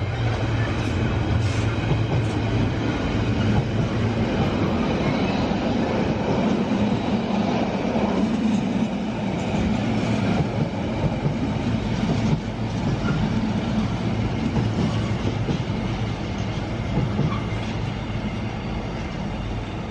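Train running: a steady rumble of engine and wheels on the rails, with a low hum that shifts pitch a few seconds in.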